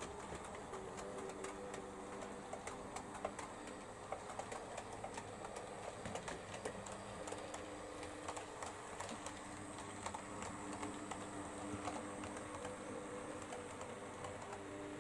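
OO gauge model of a GER N7 tank locomotive running with its coaches, the motor whirring with a faint steady hum that shifts slightly in pitch, under a dense run of small irregular clicks from the wheels passing over the rail joints.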